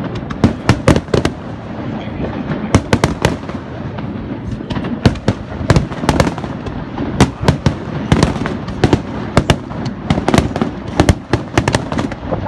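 Aerial firework shells bursting overhead in quick succession: a rapid, irregular series of sharp bangs, several a second at times, over a constant crackling din.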